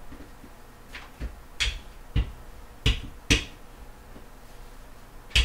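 Sharp knocks and clacks of objects set down and handled on a kitchen counter: six in the first three and a half seconds, then a last loud one near the end.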